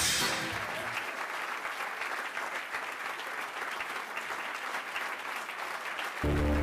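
Audience applauding steadily. Music fades out about a second in, and another piece of music starts near the end.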